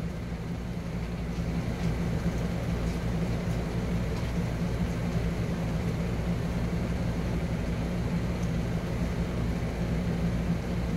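Magic Chef compact top-load washer in its spin cycle: a steady, low motor-and-drum hum that swells a little over the first couple of seconds and then holds. The drum is spinning soapy water out of the wash load.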